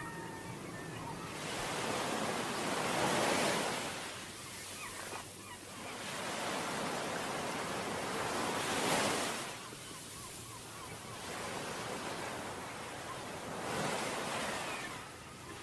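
Ocean waves breaking on a beach: three surges of surf that swell up and wash back, about five to six seconds apart.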